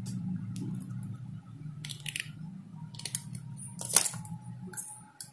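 Cutting pliers snipping and stripping the insulation of a thin wire: a series of short sharp clicks and snips, with the loudest clack about four seconds in. A low hum sits underneath and fades near the end.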